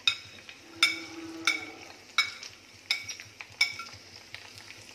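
A perforated steel skimmer spoon clinks sharply against a glass plate and the pan, about once every 0.7 s, as nuts are scraped off the plate into hot ghee. Between the clinks, the ghee sizzles faintly.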